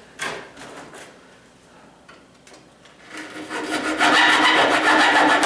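Hacksaw blade sawing through a nail hidden in the gap under a strip of wooden trim, a steady rasping that starts about three seconds in, after a single knock near the start.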